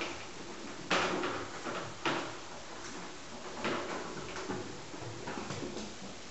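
Kittens playing and jumping, with thumps and scrabbling on the floor and furniture. Two sharper knocks about one and two seconds in, then lighter scuffles.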